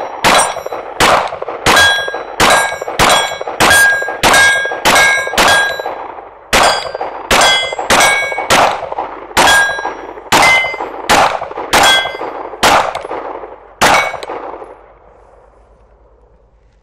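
Shadow Systems MR920 9mm pistol fired in a fast string of about two dozen shots, roughly two a second, with a brief pause about six seconds in. Most shots are followed by the ringing clang of steel targets being hit. The firing stops about fourteen seconds in.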